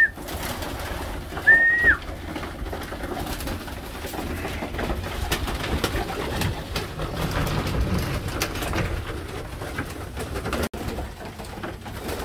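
A flock of racing pigeons feeding at a grain trough in a small loft: many small clicks of pecking and wing flutters, with low cooing. One short, high, flat whistle comes about one and a half seconds in.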